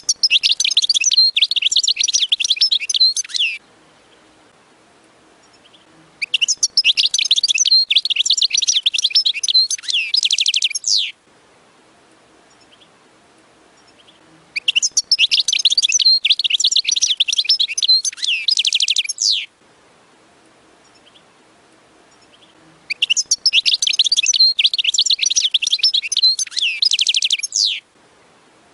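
European goldfinch singing: four bursts of rapid, twittering song, each about four to five seconds long, with pauses of about three seconds between them.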